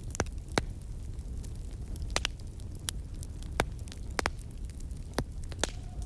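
Crackling fire: irregular sharp pops and snaps over a low, steady rumble.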